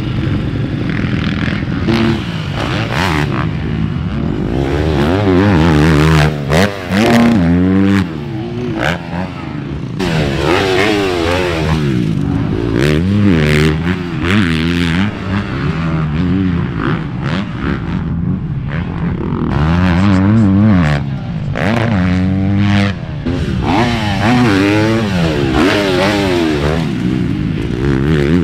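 Motocross bike engines on a supercross track, revving up and backing off again and again, the pitch climbing and dropping in quick sweeps.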